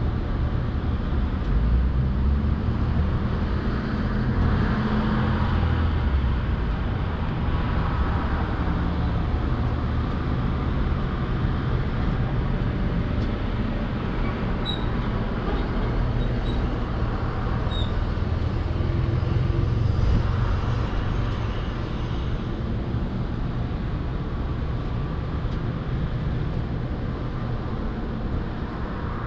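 Motorcycle engine idling steadily, with two slight swells in loudness.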